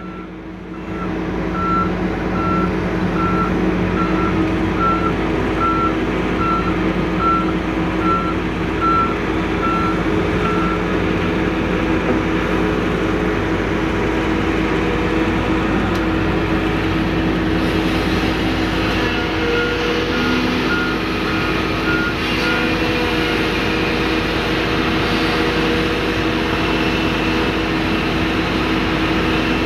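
Heavy diesel engines of a Volvo crawler excavator and a Komatsu articulated dump truck running steadily. Over them, a reversing alarm beeps evenly, a bit more than once a second, for the first ten seconds or so. A shorter, quicker run of beeps comes a little past the middle.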